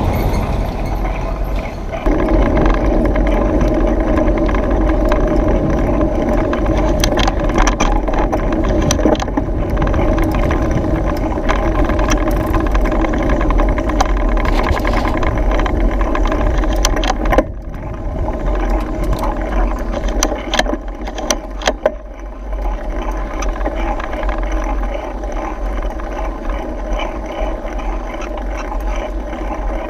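Mountain bike riding on a paved road, heard from a handlebar-mounted action camera: steady wind noise and tyre rumble with frequent rattling clicks from the bike. A steady hum joins about two seconds in and stops suddenly about seventeen seconds in.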